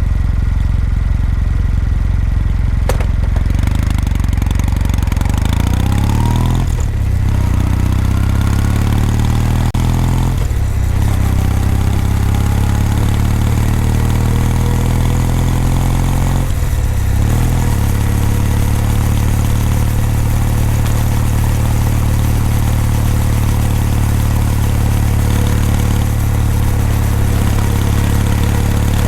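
Kawasaki W800's air-cooled parallel-twin engine and exhaust running under way. There are short breaks about 7, 10 and 17 seconds in where the pitch drops and climbs again as gears change, then it runs at a steady pace.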